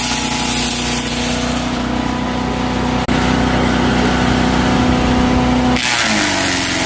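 Petrol wood chipper engine running steadily, with a harsh hiss of wood being shredded at the start and again near the end. Near the end the engine pitch sags briefly under the load of the branch.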